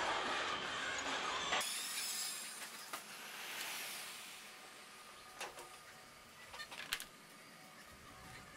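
Pit-garage working noise around a Formula E car as the crew strap the driver in: a steady hiss that drops suddenly to a quieter level about one and a half seconds in, with a few sharp clicks and knocks later on.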